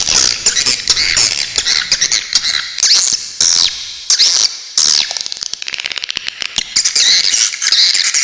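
Swiftlets calling: dense, overlapping high chirps and twittering sweeps, mixed with rapid trains of clicks.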